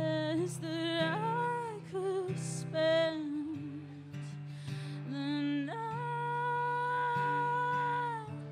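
A woman singing to her own acoustic guitar: a few short phrases, then a long held note with slight vibrato that ends just before the close.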